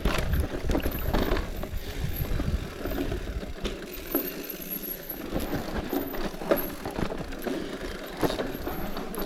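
Bicycle ridden over a rough road: a low rumble of wind and road noise on the camera's microphone, with irregular knocks and rattles from the bike.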